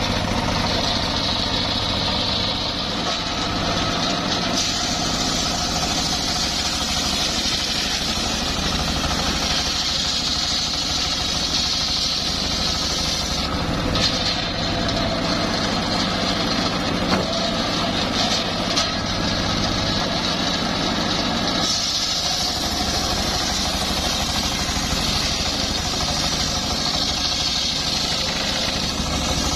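Homemade circular sawmill running steadily, its drive engine droning while the blade rips a coconut palm log, with a higher hiss from the cut that comes and goes.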